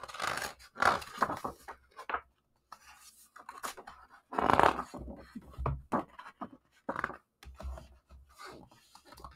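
Pages of a large picture book being turned by hand: paper rustling, brushing and sliding in a string of short scrapes, loudest about four and a half seconds in as the page swings over.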